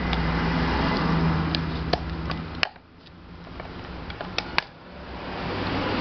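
Steady rumble of a motor vehicle with a low hum that drops away sharply about two and a half seconds in and builds back near the end. Over it, a few sharp clicks and taps of hard fan parts being handled.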